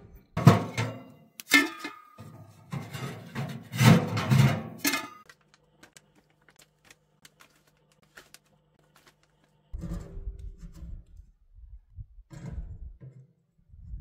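Background music with plucked strings, loud over the first five seconds, then one held low note; from about ten seconds in, quieter scattered knocks and rustling take over.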